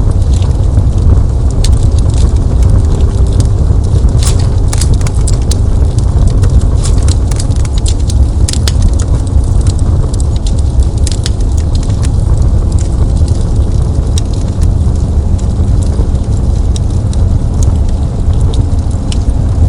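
Fireplace fire crackling: irregular sharp pops and snaps over a steady low rumble of burning wood.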